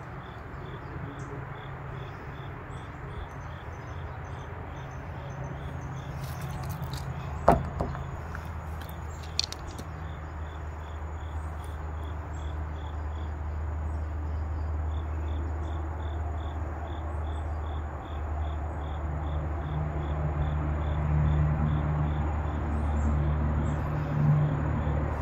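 Insects chirping in an even pulse, about three chirps a second, with a thin steady high insect tone above them, over a low rumble of road traffic that swells toward the end. A single sharp knock comes about seven and a half seconds in.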